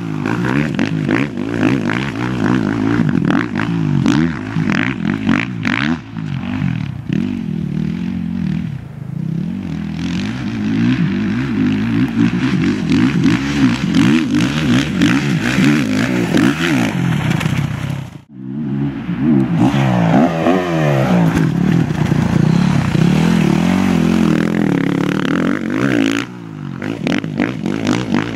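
Motocross dirt bike engine revving up and down again and again as the bike accelerates and shifts through corners on a dirt track. The sound cuts out briefly a little past the middle.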